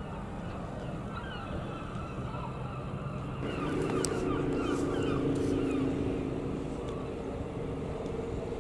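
An engine running at a steady pitch, starting suddenly about three and a half seconds in over a low background rumble, with faint chirps above it.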